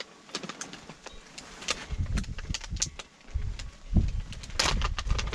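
Hands working small plastic items while loading PVA mesh bags: scattered clicks and rustles, with a low rumble that comes and goes from about two seconds in.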